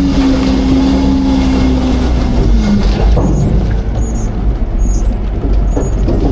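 Autocar garbage truck's diesel engine revved up with a hydraulic whine as the Heil Half/Pack packer cycles on the load. The whine falls away about three seconds in, leaving the engine running with crackling from the compacting trash.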